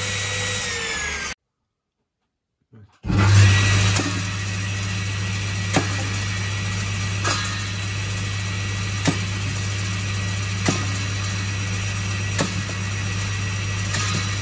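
Circular saw running with a steady hum, cutting out to silence for about a second and a half shortly after the start and then coming back in at its loudest. Sharp knocks about every second and a half as bananas are dropped onto the spinning blade and struck.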